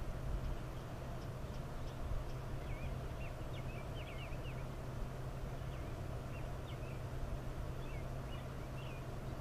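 Steady outdoor background noise with a low hum, and small birds giving short, high chirps off and on.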